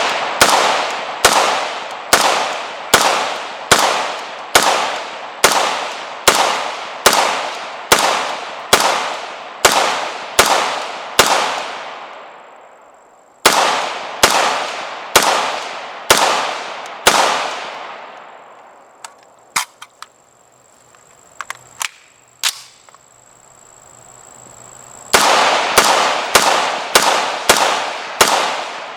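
Colt AR-15 SP1 rifle firing 5.56x45mm rounds semi-automatically: a steady string of shots a little under a second apart, each followed by a long ringing echo. The firing stops for a few seconds after the middle, with a few faint clicks in the pause, then resumes near the end.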